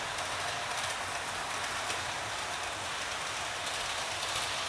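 OO gauge model of a Gresley A4 locomotive running with a train of coaches on track: a steady rushing noise of wheels on rail and motor.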